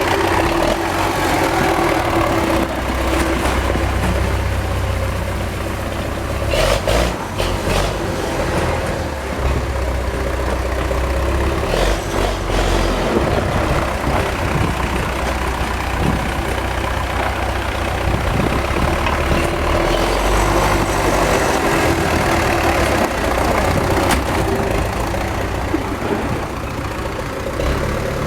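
Old MTZ (Belarus) tractor's diesel engine running steadily, with a couple of brief knocks about seven and twelve seconds in.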